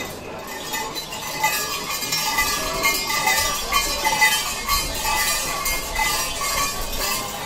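Brass bells on the velichappadu oracles' waist belts and ceremonial swords jingling as they walk, in irregular clinks.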